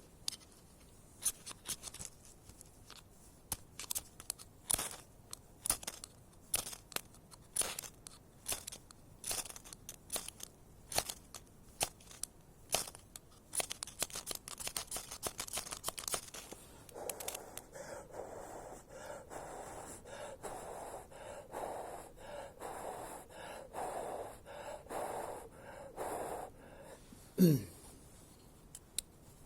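Ferrocerium fire starter scraped again and again to throw sparks onto tinder: a run of sharp scrapes about every half second, then steady rhythmic puffs of breath blowing on the smouldering tinder, which smokes but does not catch. A short, loud falling sound comes near the end.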